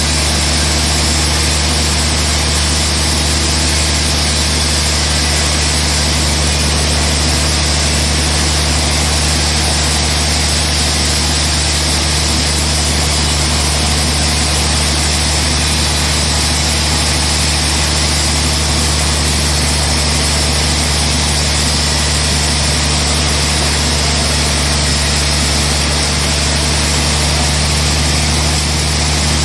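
Large band sawmill running with a steady, unchanging machine drone at one even pitch and level.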